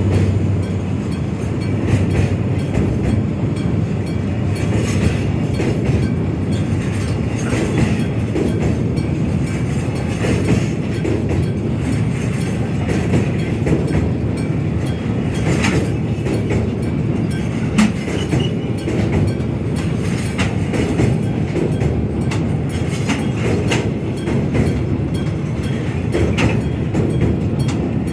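Freight train wagons rolling steadily past on the rails: a continuous rumble with scattered wheel clacks.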